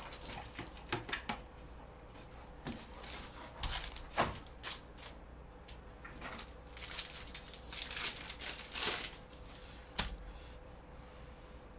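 Trading card box and pack being opened by hand: cardboard handled, the pack wrapper crinkled and torn open, and the stack of cards handled. Scattered clicks and rustles, with a longer crinkling stretch past the middle and a sharp click near the end.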